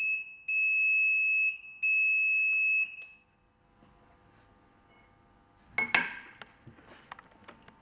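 Induction bearing heater's alarm beeping, a steady high tone in three beeps, the last two about a second long, signalling that the bearing has reached its set temperature of 100–110 °C. About six seconds in, a short rattle of metal clinks as the hot bearing is lifted off the heater's yoke bar.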